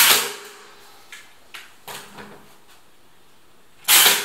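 Cordless nail gun firing twice, about four seconds apart, driving nails into timber wall panelling; each shot is a sharp bang with a brief ring after it, with a few small clicks of handling between.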